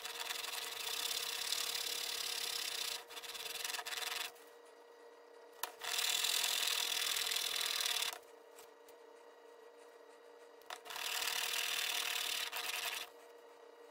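Steel single-bevel broadhead rubbed back and forth on 2000-grit abrasive paper to hone and polish its edge, a scratchy rasping in three spells of a few seconds each with short pauses between.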